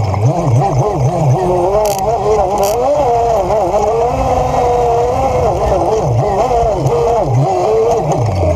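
Polaris RZR 800 side-by-side's twin-cylinder engine running under way, its pitch rising and falling again and again as the throttle is worked.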